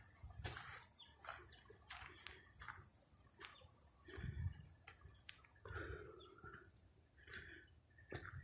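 Insects trilling in one steady, unbroken high-pitched note, with scattered clicks and brief rustles over it.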